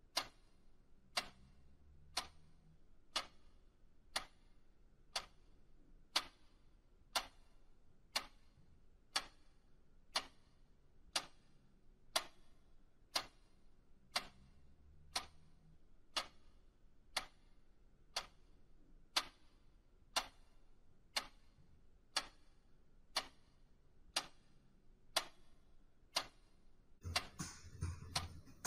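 Clock ticking steadily, one sharp tick about every second. Near the end, a fuller, louder sound swells in.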